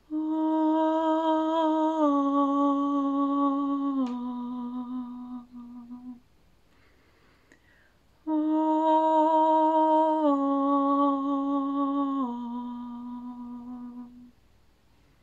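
A woman's voice in meditative vocal toning sings two long wordless phrases, separated by a short pause. Each phrase is held on a steady tone and steps down in pitch twice, and the second phrase repeats the first.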